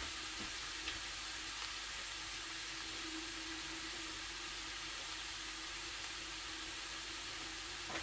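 Chopped chicken fillet and fried onion sizzling steadily in a frying pan.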